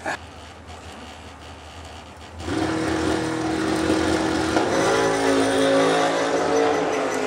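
Dragster engine coming in loud about two and a half seconds in with a steady note, then climbing in pitch from about five seconds in as the car launches down the strip.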